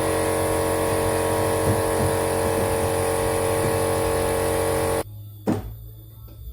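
A machine motor running steadily at one pitch, which stops abruptly about five seconds in. A single knock follows shortly after.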